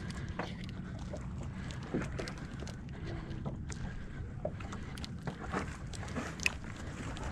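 Choppy water lapping and slapping against a small open boat's hull, with wind on the microphone as a steady low rumble and scattered light knocks.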